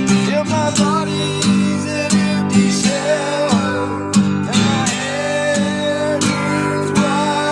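Country music: an acoustic guitar strummed in a steady rhythm, with a bending, wavering melody line over the chords.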